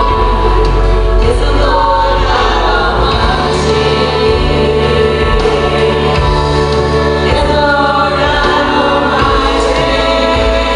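A boy and a woman singing a Christian worship song together into handheld microphones over musical accompaniment.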